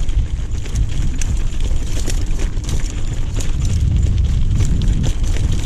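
Mountain bike clattering and rattling over loose stones on a rocky downhill trail, with many small knocks and a heavy wind rumble on the microphone.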